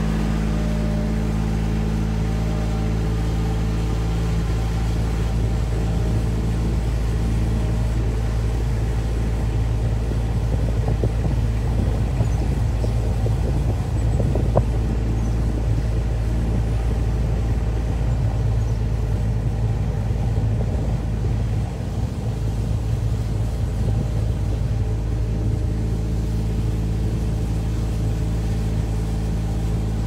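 A motor vehicle driving along a paved lane, heard from on board: a steady low engine drone that gets a little rougher in the middle.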